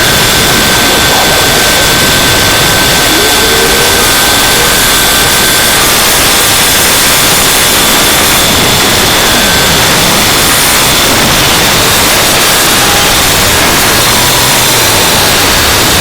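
Loud, steady static-like hiss with a faint high tone held through it, and a second, lower tone that stops about six seconds in.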